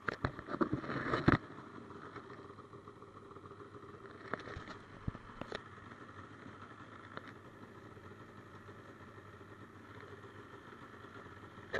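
Polaris snowmobile engine running steadily. A burst of knocks and rattles comes in the first second or so, and a few sharp clicks follow later.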